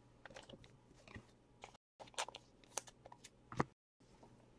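Faint, scattered clicks and light rustling of trading cards being handled and flipped, with the sound cutting out briefly twice.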